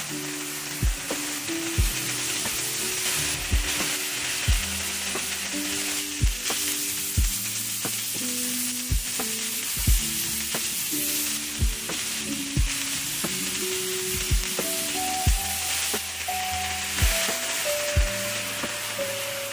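Chicken and sliced vegetables sizzling in hot oil in a nonstick skillet, stirred with a spatula. Background music with a steady low beat plays throughout.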